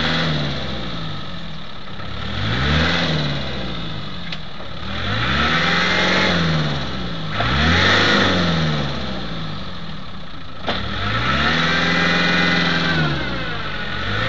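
Land Rover engine revving up and falling back in about four surges, the last one held longest, as the stuck vehicle is driven to get it out of the mud.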